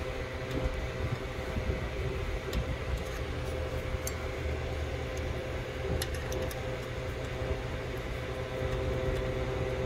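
Steady mechanical hum holding a few constant tones, like a running fan or air-conditioning unit. Over it come a few faint light metal clicks as a small Allen screw is turned with a hex key in an aluminium carburetor adapter.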